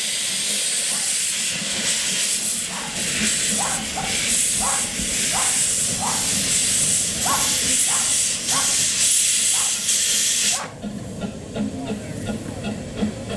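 Small steam locomotive letting off a loud, steady hiss of steam that cuts off suddenly near the end, leaving quieter, regular ticking.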